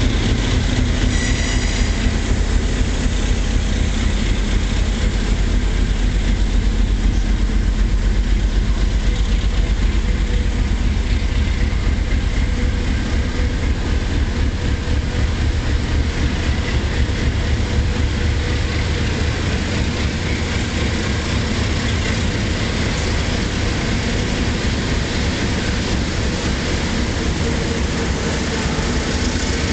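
Passenger coaches of a departing long-distance train rolling past close by, a continuous rumble of wheels on the rails as the train gathers speed.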